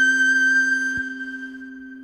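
Background music: a held high note over a steady low chord, which fades away after about a second.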